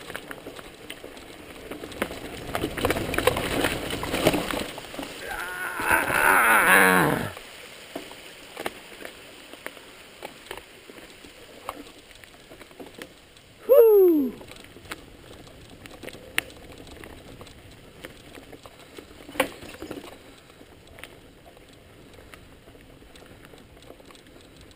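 Mountain bike riding down a rough trail: tyres and frame rattling over rocks and roots, loudest about five to seven seconds in, then quieter rolling with scattered clicks. About fourteen seconds in, a short pitched sound slides down in pitch.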